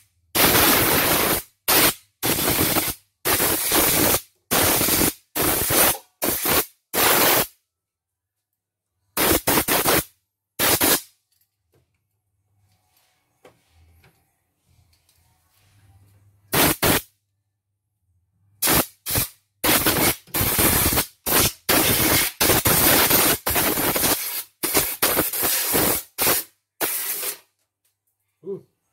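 Compressed-air blow gun firing repeated short blasts of air into the opened embroidery machine's mechanism to blow out dust. The blasts come in quick runs near the start and again in the last third, with a quiet pause of several seconds in the middle.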